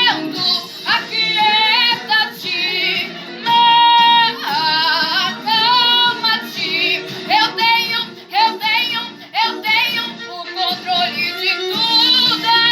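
Gospel praise song: a high-pitched solo voice singing held, wavering notes over backing music.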